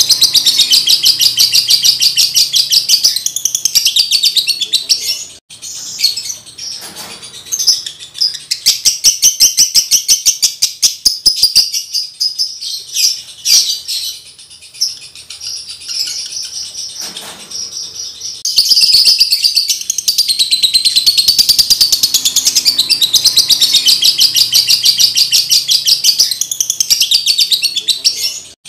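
Male Fischer's lovebird in breeding condition singing a long, rapid, high-pitched chatter. It breaks into sparser chirps for several seconds midway, then the fast continuous chatter resumes.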